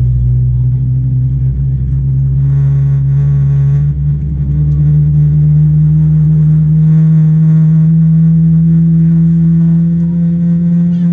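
A Boeing 777-300ER's GE90-115B turbofan spooling up during engine start, heard from inside the cabin. It is a loud low hum with a stack of higher tones that steps up in pitch about four seconds in and keeps rising slowly.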